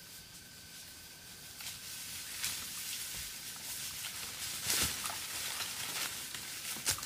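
Outdoor ambience: a steady hiss with scattered rustles and crackles, the sharpest about five seconds in and near the end.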